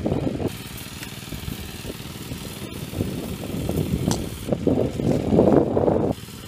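Small engine running steadily, growing louder from about four and a half seconds in and dropping back sharply about six seconds in.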